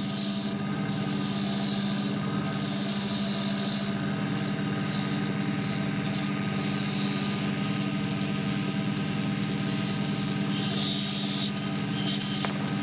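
Tabletop wood lathe motor running with a steady hum while a hand-held turning chisel cuts the spinning wood spindle, the cut coming and going as scraping hiss, strongest in the first few seconds and again near the end.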